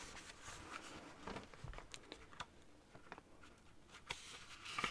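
Faint rustles and light taps of fingers on the paper pages of a small 1961 paperback book, with a few sharper paper sounds near the end as the hand takes hold of a page to turn it.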